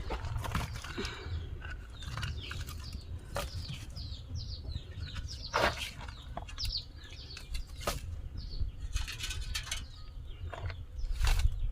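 Small birds chirping repeatedly in short, quick downward chirps, with scattered sharp clicks and knocks over a low rumble.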